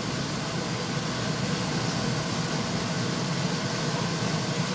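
Smelting furnace running with a steady rushing roar and a low hum underneath, as gold is heated in a crucible.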